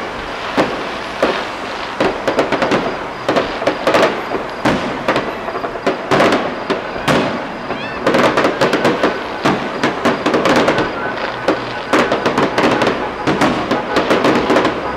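Aerial fireworks display going off: dense, rapid bangs and crackling bursts, many per second.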